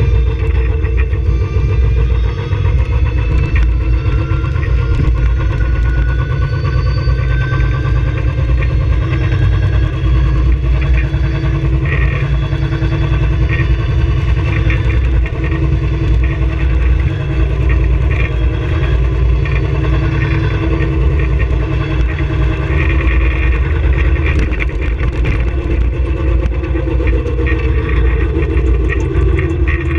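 Onboard sound of a small electric race car driving on a road: heavy wind and road rumble on the microphone, with a thin electric-motor whine that rises in pitch over the first several seconds as the car gathers speed. Scattered rattling clicks come midway and later, and a lower tone falls in pitch near the end.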